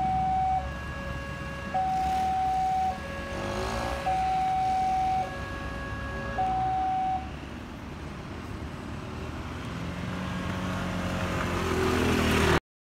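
Railway level-crossing warning alarm alternating between a high and a low tone, about a second each. It stops about seven seconds in as the crossing barrier lifts, and a low engine rumble from waiting traffic then grows louder until the sound cuts off just before the end.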